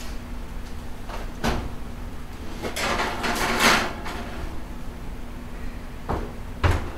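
Kitchen oven door opened with a click, a foil-lined roasting pan slid in onto the oven rack with a scraping rustle, and the oven door shut with two knocks near the end.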